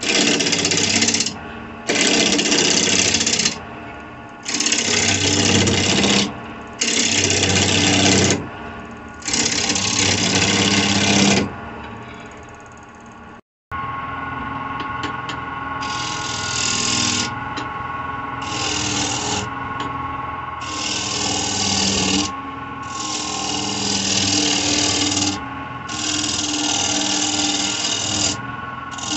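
A wood lathe spins a dry spalted birch bowl blank while a gouge takes repeated cuts along its outside. Each pass is a loud rush of cutting noise lasting one to three seconds, and the lathe's steady motor hum fills the gaps between passes. The sound drops out for a moment about halfway through, then the passes resume.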